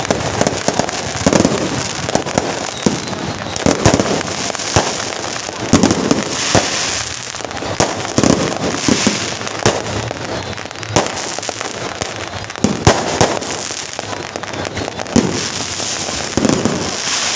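Strings of firecrackers going off in a dense, continuous crackle, with louder sharp bangs standing out every second or so.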